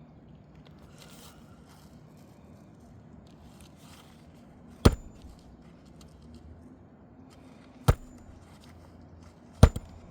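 Three single hammer blows on roofing nails in an asphalt shingle, a few seconds apart, each a sharp crack with a brief high ring.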